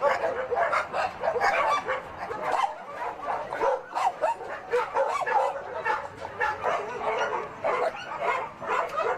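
Many dogs barking and yelping at once in a dense, overlapping chorus of short calls: dogs raised for meat on a South Korean dog farm.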